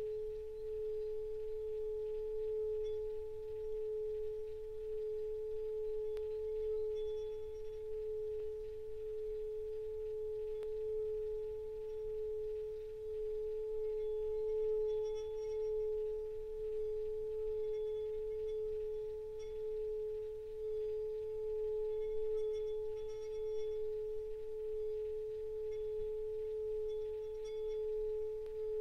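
Small brass Tibetan singing bowl sung by rubbing a mallet around its rim: one sustained, steady tone with a fainter higher overtone, swelling and fading slightly as the mallet circles.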